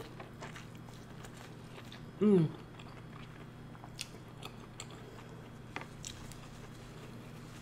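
Close-miked biting and chewing of sauced corn on the cob, with small crisp clicks and wet mouth sounds scattered throughout. A short falling hum of the voice about two seconds in.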